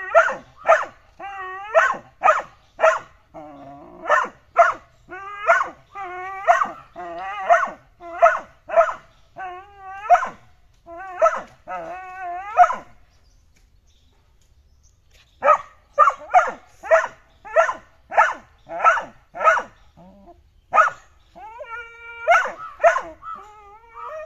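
Pitbull puppy barking over and over, sharp high barks about one a second with drawn-out whines between some of them. The barking stops for about two seconds a little past halfway, then starts again, with one long held whine near the end.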